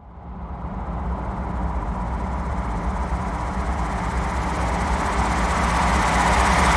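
A sustained drone texture from the Box Factory Kontakt sample library, swelling steadily louder. It has a low rumbling bed with faint held tones underneath, and a hissing upper layer that grows brighter as it builds.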